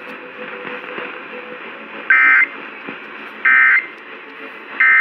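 Three short Emergency Alert System end-of-message data bursts, warbling two-tone digital code about 1.4 s apart, starting about two seconds in over a radio's steady hiss. The bursts mark the end of the tornado warning broadcast.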